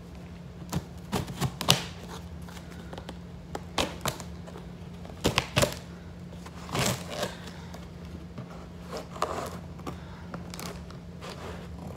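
Scissors snipping and scraping at the tape on a cardboard shipping box, in scattered short clicks and cuts, some in quick clusters.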